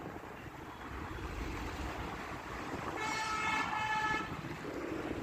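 Wind and road noise from riding on a motorcycle in traffic. About three seconds in, a vehicle horn honks for about a second, with a short break in the middle.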